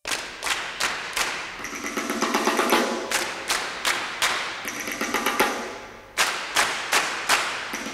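Background music with a quick, steady drum beat and pitched percussion over it. The beat thins out and fades briefly about six seconds in, then comes back hard.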